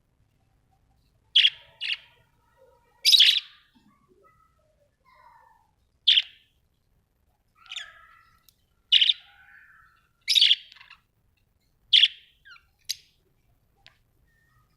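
Budgerigars chirping: about nine short, sharp calls spaced a second or two apart, with faint soft chatter in between.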